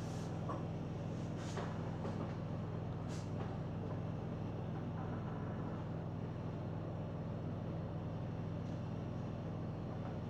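Steady low background hum, with three faint short clicks in the first few seconds.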